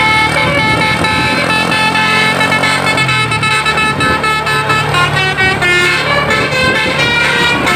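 Basuri 'telolet' multi-tone air horn on a tour bus playing a rapid tune of quickly changing notes, with the bus engine running underneath.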